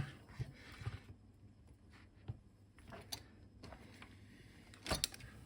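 Faint scattered clicks and taps from handling wires and small tools at a workbench, with a sharper click about five seconds in.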